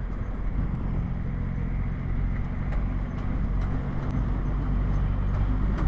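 Triumph Rocket 3 R's 2.5-litre inline three-cylinder engine running steadily under way, a deep even rumble with the motorcycle at cruising speed.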